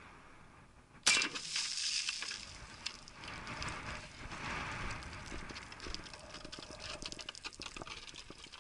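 A single shot from an AKS-74U-pattern 5.45x39mm short-barrelled rifle about a second in, followed by a splashing spray as the hit water jugs burst. Scattered small clicks and rustles follow.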